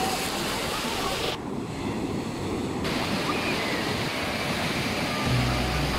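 Steady rush of sea surf with wind on the microphone. A low steady hum comes in near the end.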